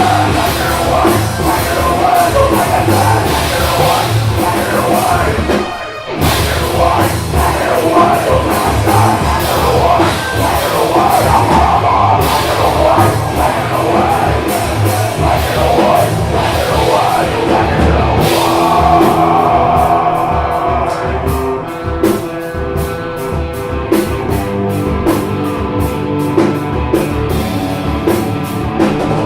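Heavy rock band playing loud and live, with drums, guitars and yelled vocals. The band drops out briefly about six seconds in, then comes back in.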